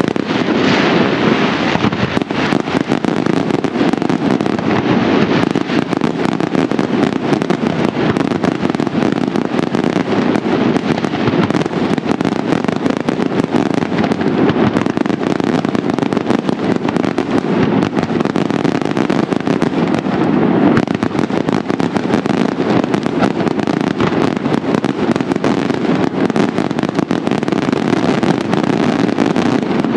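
Daytime fireworks barrage: a continuous, dense run of bangs from salutes and shells, the reports packed too close together to count, with no let-up.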